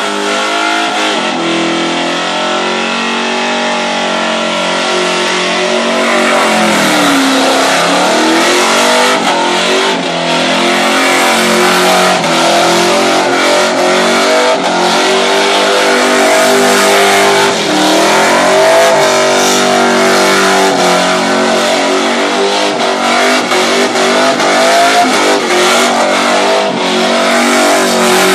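Holden HQ Kingswood doing a burnout: the engine is held at high revs while the rear tyres spin against the pad. The revs dip and climb back twice, over a steady hiss of spinning rubber.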